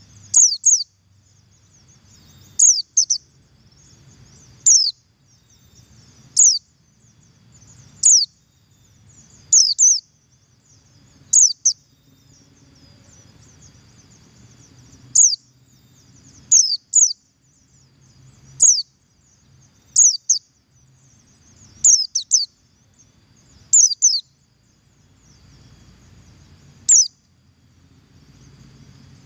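Oriental white-eye of the buxtoni race (pleci buxtoni) giving short, sharp, high calls that fall in pitch, one every second or two, often doubled in quick pairs: the 'double call' used as a lure to get other white-eyes singing.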